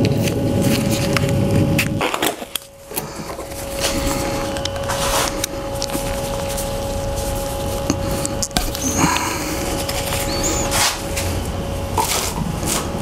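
Small fuel-pump parts and hardware being handled and fitted together by gloved hands: rustling for the first couple of seconds, then scattered light clicks and knocks of small hard parts. A steady hum runs underneath.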